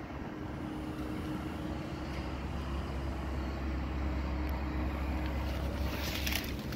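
A motor running steadily with a low hum that grows fuller about two seconds in. Brief rustling comes near the end.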